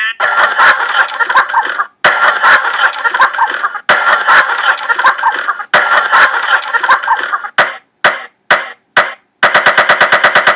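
Music made from chopped sound-effect samples: a dense noisy sampled clip repeated in blocks about two seconds long, each cut off sharply, then a few separate short hits, then a fast stutter of rapid repeats near the end.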